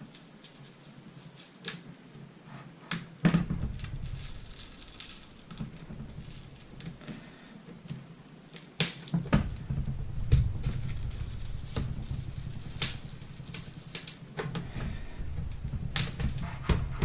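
Irregular sharp clicks and crackles of plastic and adhesive tape as a broken laptop LCD panel is pried away from the strong tape holding it in the display lid, over low handling rumble. The loudest clicks come about 3 s in and about 9 s in.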